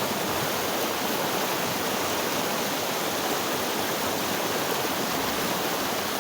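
Stream flowing: a steady rush of running water.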